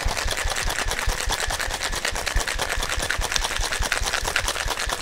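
Ice rattling fast and evenly inside a Boston shaker being shaken really hard and quickly, the hard shake that emulsifies the egg white in the cocktail.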